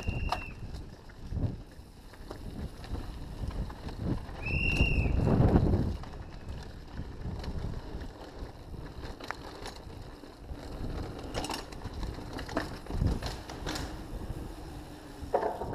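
Mountain bike ridden fast over grass and cobblestones: tyres rumbling, with the chain and frame rattling and clicking over the bumps. Two short high squeals, one at the start and one about five seconds in.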